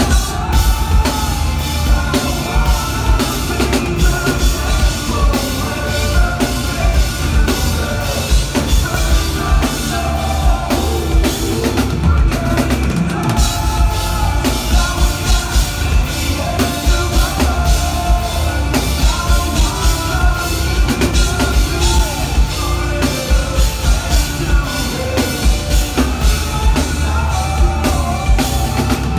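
Live rock band playing loud, with the drum kit and a heavy kick drum driving a fast, steady beat; the drums thin out briefly about twelve seconds in, then come back in full.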